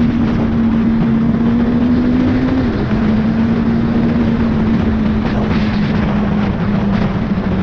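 Yamaha YZF-R1 (2007) inline-four engine running steadily while riding, with a constant noise haze over it. The engine note steps slightly lower about two and a half seconds in, then eases down a little more.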